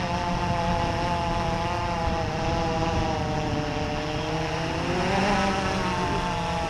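Quadcopter's electric motors and propellers whining steadily in flight overhead, a layered hum whose pitch wavers slightly and rises briefly about five seconds in before settling again.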